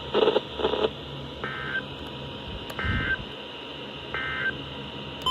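Emergency Alert System SAME digital data tones over weather radio: three short warbling bursts about 1.3 s apart. This is the end-of-message signal that closes the severe thunderstorm warning.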